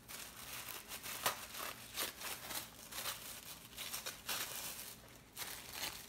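Tissue paper rustling and crinkling in irregular crackles as a gift is unwrapped, the paper peeled back carefully so it can be saved.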